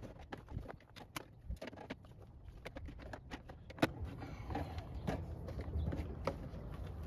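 Light, scattered clicks and knocks of plastic hydroponic gutter parts being handled and fitted together, a gutter coupling being worked onto the joint between two gutters, with one sharper click a little before the middle.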